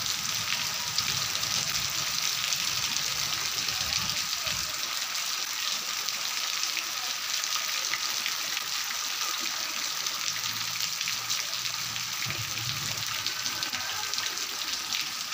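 Steady rain falling, a dense even patter of drops on wet ground.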